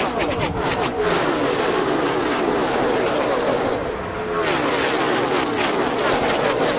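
NASCAR Cup cars' pushrod V8 engines running at racing speed, several engines heard together with their pitches wavering. The sound changes abruptly about a second in and again around four seconds in.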